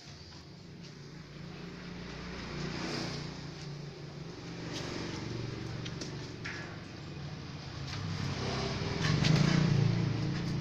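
A motor vehicle's engine running nearby, a low rumble that swells to its loudest near the end, with a few light clicks.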